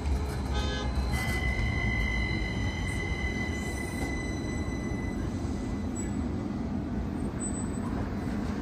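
Tacoma Link light rail train running on the track with a low rumble. A high, steady wheel squeal sets in about a second in, holds for several seconds, then fades.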